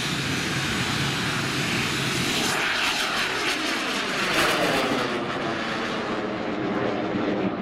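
Bang fai saen, a large black-powder Thai festival rocket, firing its motor at lift-off: a loud, steady rushing noise, its pitch sliding downward from about three seconds in as it climbs away.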